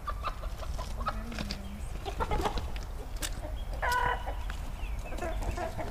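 Chickens clucking: scattered short clucks, with a louder call about four seconds in.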